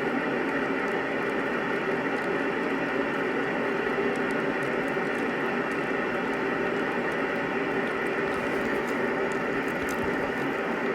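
Steady hiss with a faint hum, unchanging throughout.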